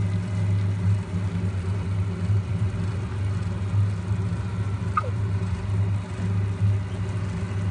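A steady low hum, with the faint sizzle of sauce and vegetables cooking in the pan underneath and one brief click about five seconds in.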